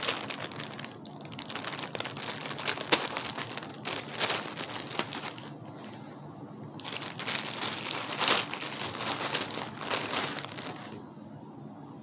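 Packaging crinkling and rustling in the hands as a plush toy is unwrapped, with a short lull midway and a stop about a second before the end.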